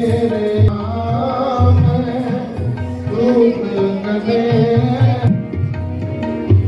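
Background music: a voice singing a melody over tabla drumming and other instruments.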